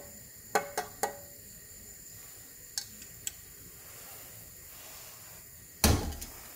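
Kitchen clatter of a metal pot and tea strainer against a ceramic mug: three quick light clinks in the first second, two faint ticks a few seconds later, then one heavy clunk near the end as the pot is set down on the gas stove.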